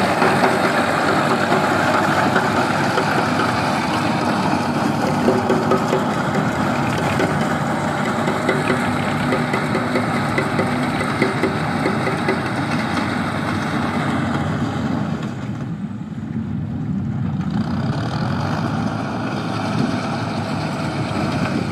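Farm tractor's diesel engine running steadily, loudest at first and easing off, with a short lull about sixteen seconds in.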